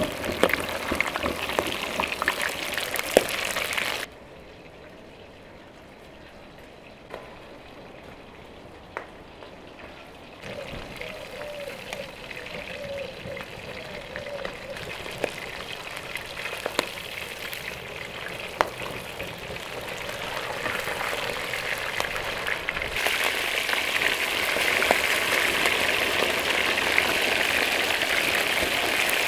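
Flour-coated fish steaks frying in hot oil in a large pan, a steady sizzle. About four seconds in, the sizzle suddenly drops to a much quieter stretch, then slowly grows back and is loudest again over the last several seconds.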